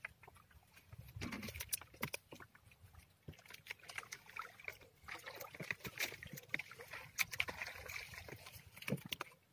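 A fishing net being hauled by hand over the side of a small outrigger boat: water drips and splashes off the net, with scattered irregular clicks and taps of the net and its floats against the hull.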